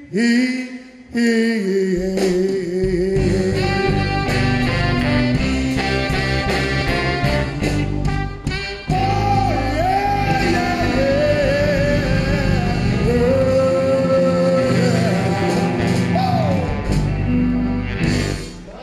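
Live slow-blues band with a male singer: a sung vocal phrase, then the full band with electric guitars, bass and drums comes in about two seconds in, with long held, wavering melody lines over it. The music stops near the end as the song finishes.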